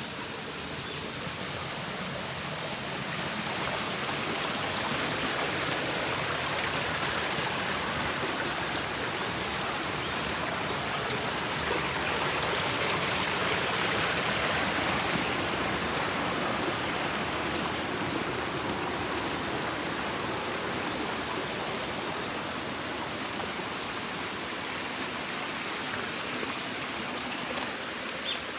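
Mountain valley stream rushing over rocks, a steady wash of water that grows a little louder midway. A brief click sounds just before the end.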